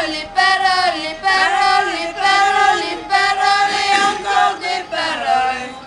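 Singing in a high register: long held notes of about a second each, with slides in pitch between them.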